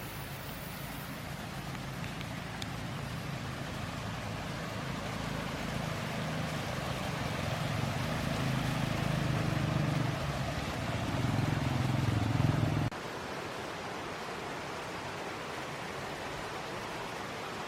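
Steady rushing of mountain water. A low rumble grows louder over it and cuts off suddenly about thirteen seconds in.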